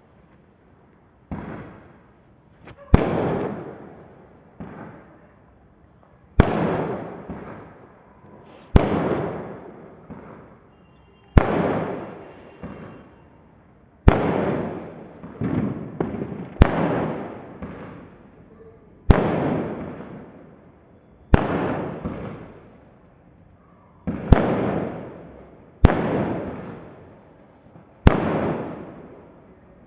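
Fireworks going off: about a dozen sharp bangs every two to three seconds, each followed by a rolling rumble that fades away over a second or two.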